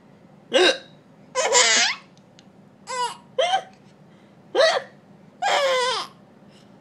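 A woman hiccuping in short, sharp bursts, each answered by the laughter of a six-month-old baby, back and forth about three times.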